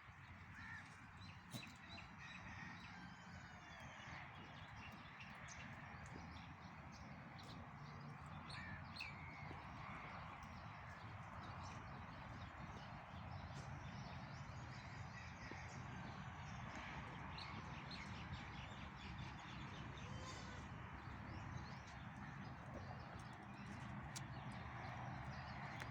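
Faint, scattered bird calls over a steady background hum and hiss.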